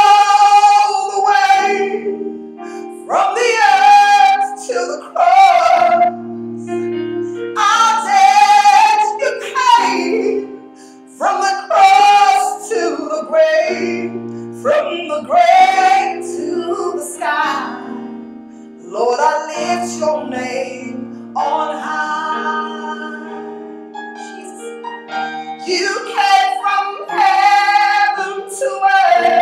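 A woman singing a worship song solo in long, loud phrases with short breaths between, over held instrumental chords.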